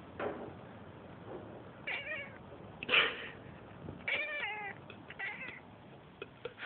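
Domestic cat meowing: a series of short meows about one a second, the loudest about three seconds in.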